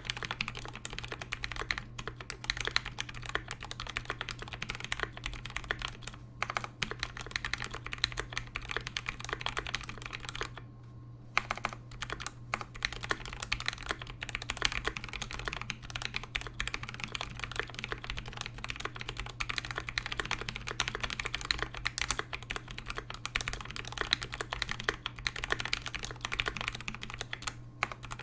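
Continuous typing on a KBD67v2 mechanical keyboard with Zealios v2 67g tactile switches and Cherry stabilizers lubed with Krytox 205g0, a brass plate and GMK Olive keycaps. It is a dense stream of keystrokes with a brief pause about ten seconds in.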